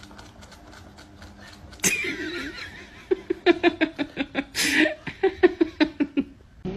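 A person laughing: a quick run of short pitched ha-ha pulses, about four or five a second, starting about three seconds in after a quieter opening.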